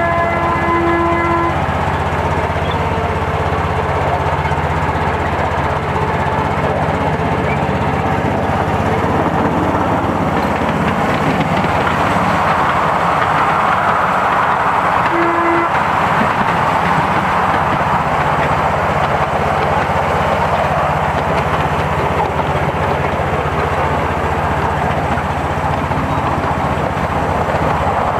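Miniature railway train running along the track, a steady rolling rumble with a low hum, swelling and echoing as it passes through a short tunnel about halfway through. A steady, horn-like tone sounds for about a second and a half at the start, and a short tone sounds again near the tunnel exit.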